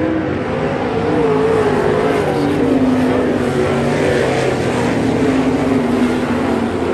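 A field of 360 sprint cars' V8 engines racing around a dirt oval. Several engine notes rise and fall as the cars go through the turns, with no single car standing out.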